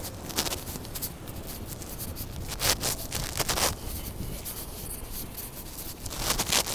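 Rubbing and scraping handling noise from a hand-held phone carried while walking, as fingers or clothing brush over its microphone. The scrapes come irregularly, loudest between about two and a half and four seconds in and again near the end.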